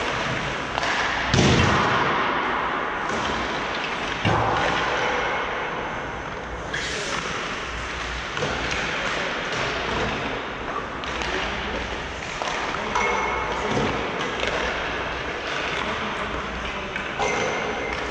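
Thuds and knocks of a hockey game in an echoing rink: a heavy thud about a second and a half in, another near four seconds, and lighter knocks scattered throughout.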